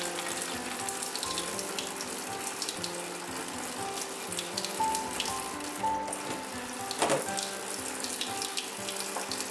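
Water trickling and splashing in a stainless steel sink as small fish are handled in a bowl of ice water, with many small drips and ticks. Soft background music with held notes runs underneath.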